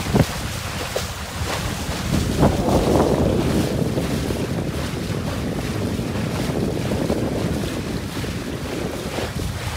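Wind buffeting the microphone on a sailboat under way, with water rushing and splashing along the hull; the water rush swells about three seconds in.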